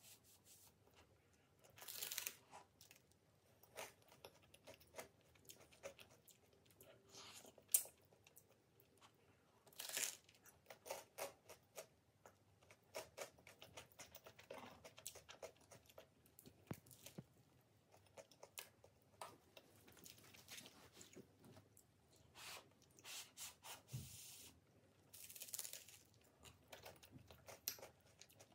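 Close-up eating: crisp, crunchy bites and tearing of toasted garlic bread in a few separate bursts, with chewing and small clicks between them, and one sharp click about eight seconds in.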